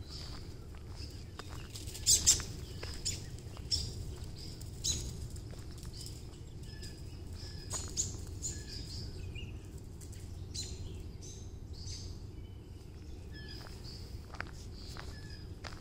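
Songbirds chirping and calling over and over, with a couple of sharper, louder calls about two seconds in. Footsteps crunch on a gravel path over a low, steady background rumble.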